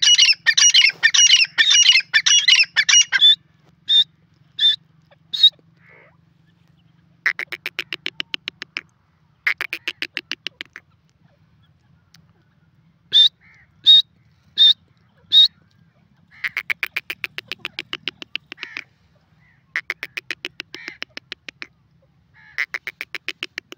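Grey francolin calling: a loud, dense burst of calls at the start, then two sets of four short, sharp high notes, and several trains of rapid, evenly spaced ticking notes, each lasting a second or two.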